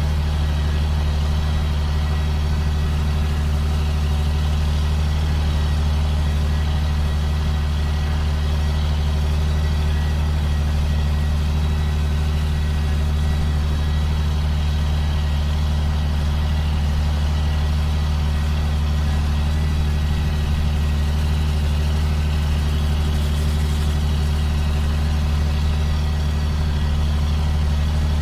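2005 John Deere sprayer's diesel engine running at a constant speed, a steady low drone with a faint high steady tone over it.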